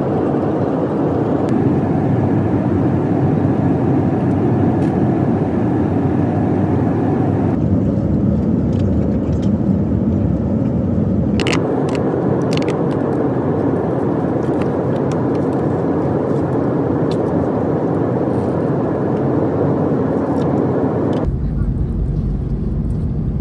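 Steady running noise of a vehicle, changing abruptly several times, with a few sharp clicks about halfway through.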